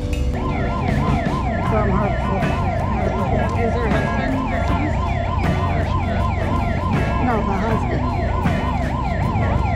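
A siren wailing rapidly up and down in a fast yelp, about two and a half sweeps a second, over a steady low rumble. It starts about half a second in and stops just before the end.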